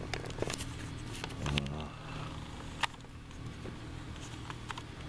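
Handling noise from a handheld camera being set down: scattered clicks and rubbing, a dull bump about a second and a half in and a sharp click near the three-second mark, over a low steady hum.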